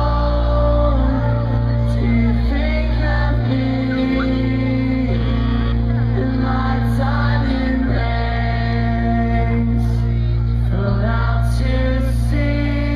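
Pop-punk band playing live: electric guitars, bass and drums with a singer's vocals over them.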